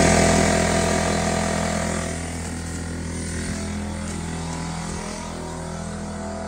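An engine running with a steady drone, easing off over the first couple of seconds and then holding at a lower level.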